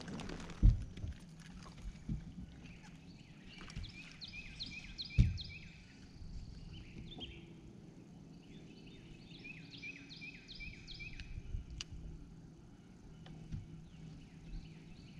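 A bass hitting the fibreglass deck of a bass boat as it is swung aboard: a heavy thump, then a second thump a few seconds later as it is handled. A songbird sings two runs of short, quickly repeated whistled notes.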